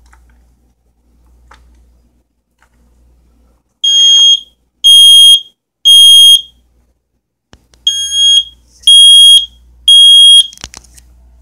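Kidde 10-year smoke alarm's horn sounding its test signal: two rounds of three loud, high-pitched beeps, the temporal-three pattern, set off by keying a code on its two test buttons.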